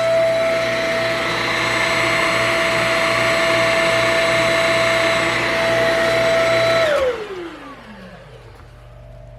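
Shark Rocket HV322 corded stick vacuum running with a steady high-pitched motor whine over rushing air. About seven seconds in it is switched off, and the whine falls away as the motor spins down.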